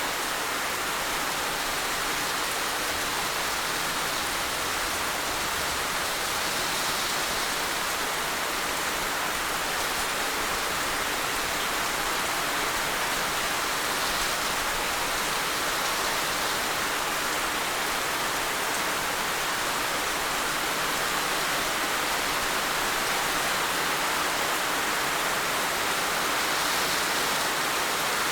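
Heavy rain falling steadily: a dense, even wash of drops with no let-up.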